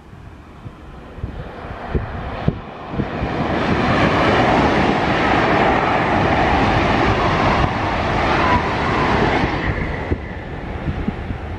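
Two coupled ICE high-speed trainsets passing at speed. The rush of wheels and air swells over about three seconds, holds, and fades after about ten seconds.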